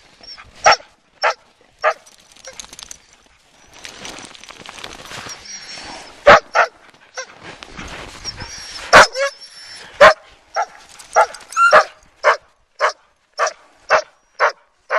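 Sled husky giving repeated sharp, high shrieks and barks, impatient to run again while the team is held stopped. The calls come irregularly at first and then about every half second near the end, with a stretch of rustling noise in the middle.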